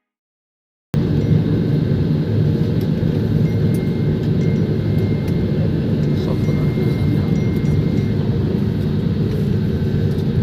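Airliner cabin noise after landing: a steady low rumble of engines and airflow heard from inside the passenger cabin, starting abruptly about a second in after a moment of silence.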